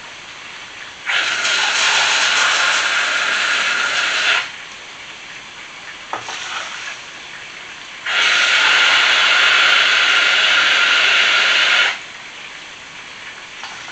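Kitchen tap running twice, each time for about three to four seconds, filling a mug with water; between the two runs a brief, fainter pour of water into a pot of dry buckwheat.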